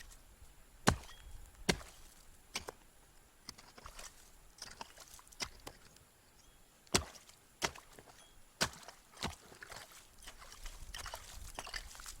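Sharp chopping strikes into lake ice, about ten blows at an uneven pace, while a hole is cut to test the ice's thickness.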